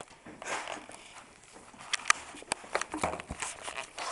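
Irregular clicks, knocks and rustling from hands and objects on a school desk and from the camera being handled, with a cluster of sharp knocks about two seconds in.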